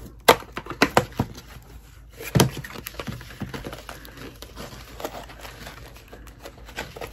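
Plastic packaging crinkling and crackling as a plastic sandwich bag is pulled out of its pack: a few sharp crackles in the first couple of seconds, then softer rustling.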